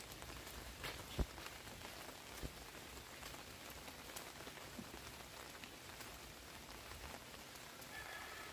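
Faint steady patter like light rain, dotted with scattered sharp drips or ticks. A faint thin high tone comes in near the end.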